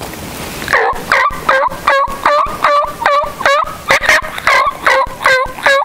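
Turkey call sounding a long run of hen yelps, about a dozen even notes at roughly two and a half a second, loud and close.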